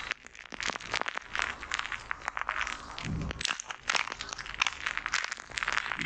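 Foam lather piled on a microphone, crackling and popping close up as it is squished by fingertips, with a dull low thump about three seconds in.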